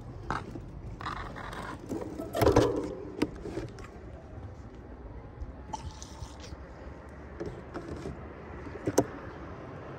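Steady street background with scattered knocks and scrapes, and a louder clatter about two and a half seconds in and a sharp click near the end.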